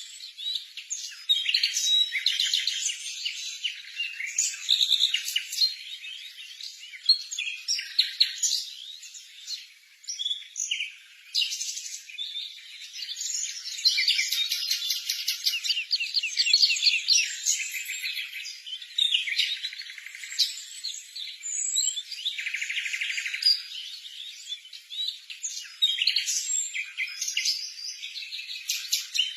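Sparrows chirping, a dense, continuous run of short chirps and quick trills from several birds.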